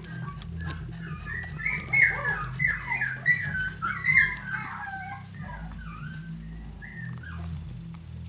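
Finnish Lapphund puppies a few weeks old whimpering and squeaking as they jostle against their mother, a run of many short, high, sliding cries that is busiest in the middle and thins out after about five seconds.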